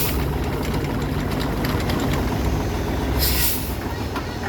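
Heavy machine engine running steadily with a low rumble, with a short hiss about three seconds in.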